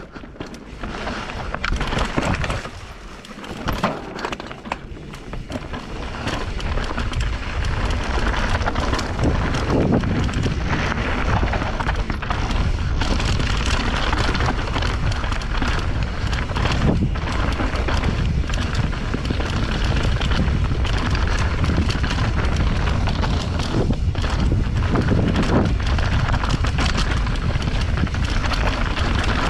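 Wind buffeting a GoPro Hero 8's microphone while mountain bike tyres roll over a dirt trail, with many short knocks and rattles from the bike over bumps. It is quieter and uneven for the first few seconds, then loud and steady from about six seconds in.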